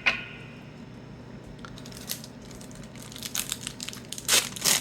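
A 1991-92 Upper Deck basketball card pack wrapper being crinkled and torn open, with scattered small crackles and two loud rips near the end.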